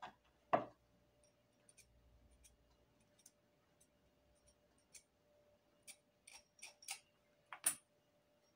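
Short, scattered scrapes and clicks of small metal hand tools, a serrated wax-planer blade and a pointed pick, worked against each other and on a wax block. The loudest scrape comes about half a second in, and a quick run of five or six strokes comes near the end.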